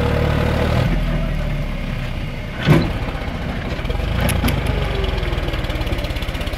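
Tractor's diesel engine running under load as it pulls a loaded sand trolley through loose sand, with one sharp knock a little under three seconds in. After the knock the engine settles into an even, rapid pulsing beat.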